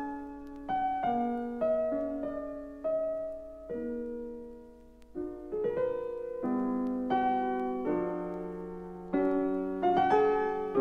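Piano playing a slow passage of chords, each struck with a sharp attack and left to fade before the next, in a classical chamber piece for oboe and piano.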